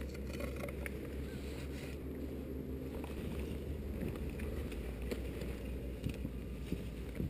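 Wind buffeting an action-camera microphone on an exposed mountain ridge, a steady low rumble, with a few light clicks and scrapes of climbing gear (ice axe, rope and boots) on rock and snow.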